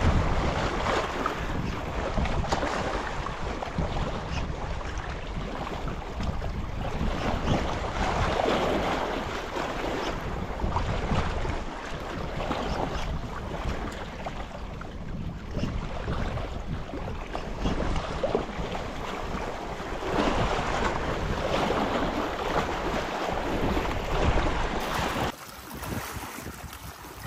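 Wind buffeting the microphone in uneven gusts, heaviest in the low end, easing off suddenly near the end.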